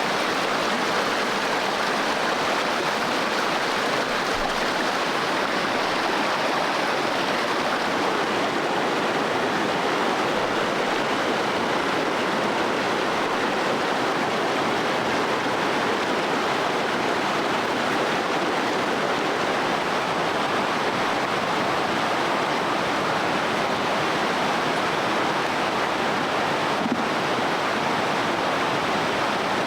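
Flowing stream water rushing steadily, an even, unbroken wash of noise.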